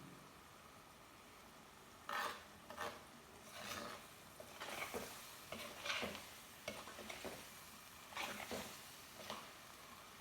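Spoon stirring and scraping around a cooking pan: a run of uneven strokes starting about two seconds in and stopping shortly before the end.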